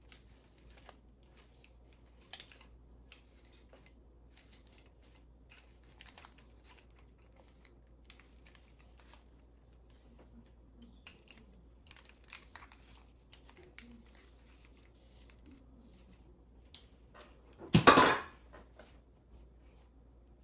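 Scattered light clicks and rustles of a curling iron and hair being handled during styling. Near the end there is one loud, brief noise lasting about half a second.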